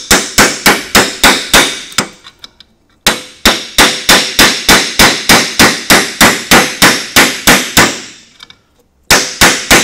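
Rapid hammer blows on a steel extractor socket, about three to four sharp strikes a second, driving an undersized 12 mm socket onto a rounded-off bolt head. The blows come in three runs, broken by short pauses about two seconds and about eight and a half seconds in. The socket is too small and will not seat.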